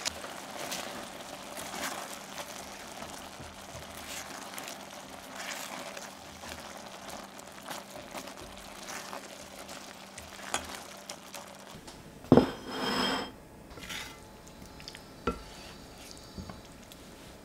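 A spatula stirs a butter bean, cherry tomato and spinach stew in a stainless steel sauté pan, with soft, irregular wet scrapes against the pan. About twelve seconds in there is a knock and a short scrape as a ceramic serving bowl is set on the wooden table, then another knock a few seconds later.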